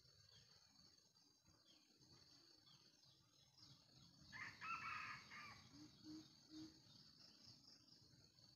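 A junglefowl rooster crows once, a short crow of a little over a second starting about four seconds in, followed by three short low clucks.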